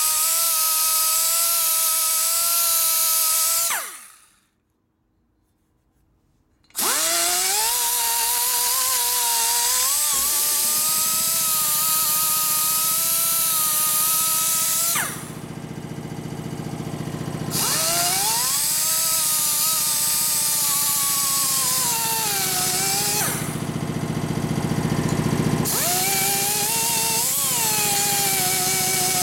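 Die grinder porting a Harley-Davidson Twin Cam 110 cylinder head, a high whine. It winds down and stops about four seconds in, starts again a few seconds later and runs on, its pitch wavering and sagging at times as it cuts.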